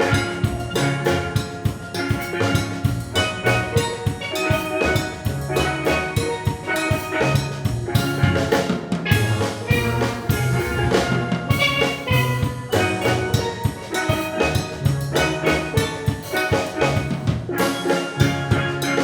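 Steel pan band playing an upbeat tune: quick struck ringing pan notes over a low bass line, with drums keeping a steady beat.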